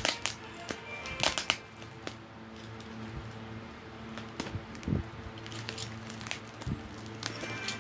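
Plastic bubble wrap around a parcel being handled and pulled by hand: scattered crinkles and sharp clicks, the loudest a second or so in. Faint background music with steady held notes runs underneath.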